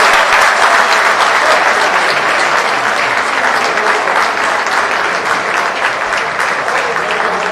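Stadium crowd applauding a goal: dense clapping that slowly dies down.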